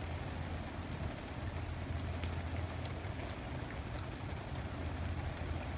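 Rain falling steadily on the water surface, with scattered sharp ticks of single drops striking close by and a steady low hum underneath.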